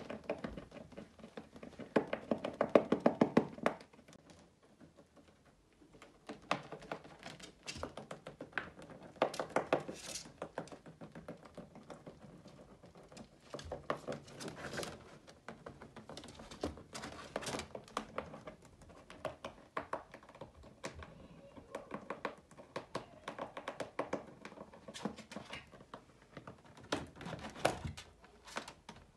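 A rabbit gnawing: rapid clicking bites in bursts, the loudest run coming about two seconds in.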